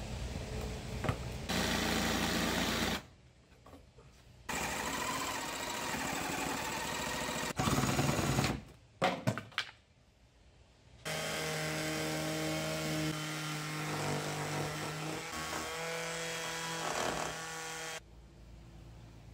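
Cordless reciprocating saw cutting through the painted pine of a dresser, its blade sawing in several stretches broken by short gaps about three and ten seconds in. In the longest stretch the motor hums at a steady pitch, and the sound drops off near the end.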